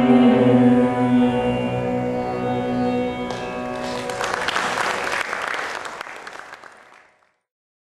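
Harmonium holding a sustained final chord, joined about three seconds in by audience applause that dies away and fades out near the end.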